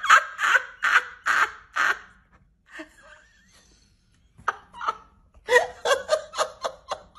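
A woman laughing in a run of short bursts, about two a second. After a short lull she laughs again in quicker bursts.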